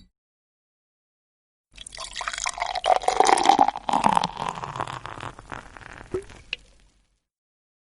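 Liquid pouring and splashing for about five seconds, starting about two seconds in and fading out near the end.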